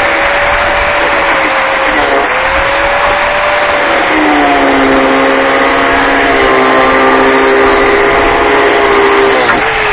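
Electric power tool running hard while cutting through a steel door hinge pin. Its motor pitch sags about four seconds in as it bites under load, then it is released near the end and starts to wind down.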